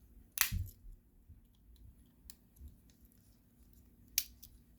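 Swiss Army knife tools being worked by hand: two sharp clicks, one about half a second in and one near the end, with faint small ticks between, as the pliers and blades snap against the knife's springs.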